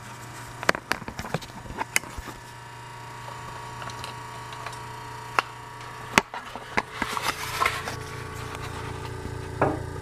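Steady low hum of a GE Monitor Top refrigerator's sealed compressor running, with a scatter of sharp clicks and knocks over it.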